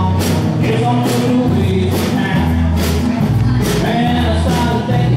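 Live band music: guitars over steady bass notes and a drum beat of about two hits a second, with a voice singing.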